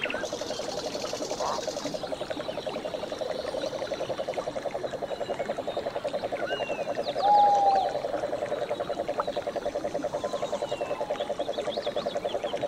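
A steady, rapid pulsing trill from a chorus of calling animals, with birds chirping over it and a short, loud whistled note about seven seconds in.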